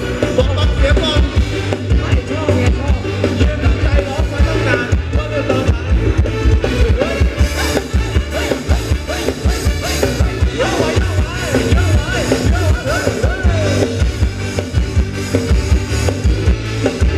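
Loud Thai ramwong dance music from a live band, with a steady drum and bass beat under melodic lines.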